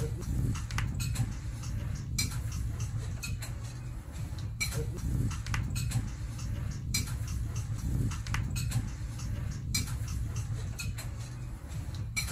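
Scattered light clicks and ticks, irregular and a few each second, over a low steady hum.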